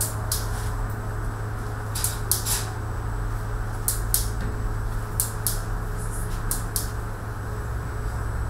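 Short, sharp clicks and snaps, several in quick pairs, from a clear plastic sewing template being handled and pressed down on trouser fabric, over a steady low machine hum.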